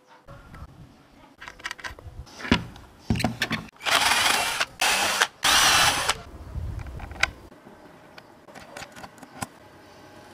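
Handheld power drill boring into a PVC panel in two loud bursts a few seconds in, each lasting about a second. Before and after them come scattered small clicks and knocks of parts being handled.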